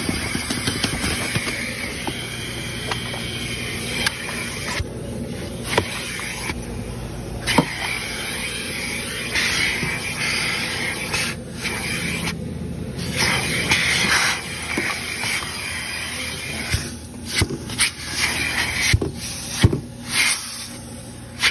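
Vacuum cleaner running, its nozzle sucking at car floor carpet: a steady motor hum and rushing air. The rushing cuts out briefly several times, and scattered sharp clicks sound as bits of debris are picked up.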